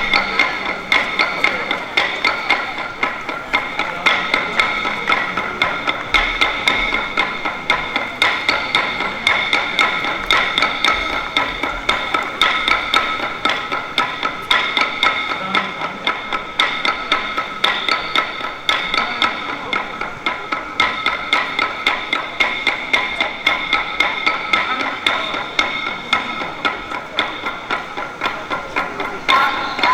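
Dadeumi ensemble: several pairs of wooden clubs beating on laundry-smoothing stones in a fast, steady, interlocking rhythm of bright wooden clacks, with no singing.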